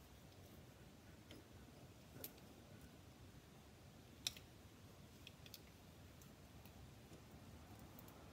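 Faint, scattered light clicks of a clamp plate and its bolts being handled and fitted around a drive shaft, the sharpest click about four seconds in.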